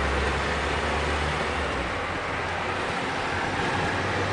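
Thunderstorm wind rushing steadily, with a low rumble of wind on the microphone that eases about two seconds in.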